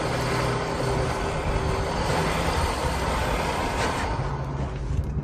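Off-road vehicle engine running under way, buried under heavy rushing wind and tyre noise that eases near the end.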